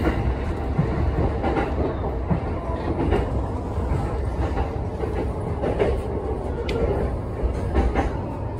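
Electric commuter train running into a station, heard from inside the front car: a steady rumble of wheels on rail, with irregular clicks and knocks as the wheels cross rail joints and switches.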